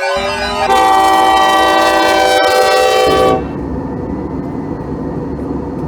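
Multi-chime locomotive air horn sounding one loud blast of several notes together, which cuts off about three and a half seconds in and leaves the low rumble of the passing train.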